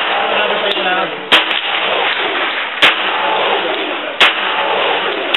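Three single shots from a SIG 1911 pistol in .45, fired at an even pace about a second and a half apart.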